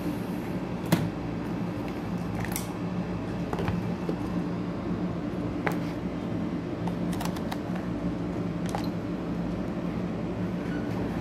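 Steady low machine hum in a small room, with scattered light clicks and taps as a multimeter and a small bridge rectifier are handled and set down on the bench. The loudest click comes about a second in.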